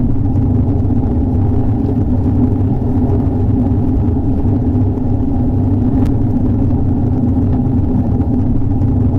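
Steady heavy rain with a deep, low rumble, most of its sound low-pitched, and a single faint tick about six seconds in.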